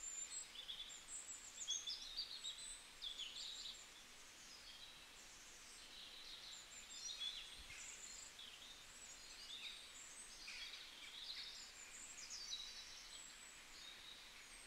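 Faint birdsong: many short, quick chirps and trills, high in pitch, scattered throughout over a soft hiss.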